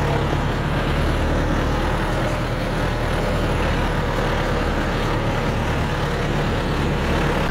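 Kubota M6040 Narrow tractor's diesel engine running steadily under way, with an even hiss over it.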